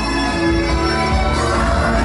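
Loud music playing in a club, with a strong deep bass.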